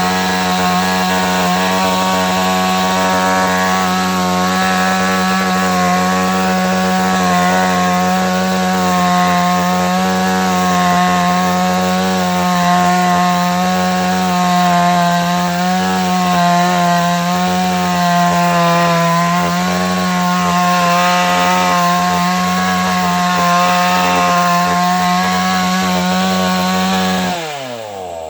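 Two-stroke chainsaw running at high revs, cutting into a wooden log, its pitch wavering slightly under load. About a second before the end the revs fall away sharply as the throttle is released.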